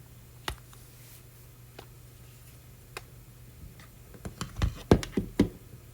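Plastic clicks and knocks from handling a fill-light phone clamp against a DJI Osmo Mobile SE gimbal while trying to seat it: a few spaced clicks, then a quicker run of louder knocks near the end, over a faint low hum.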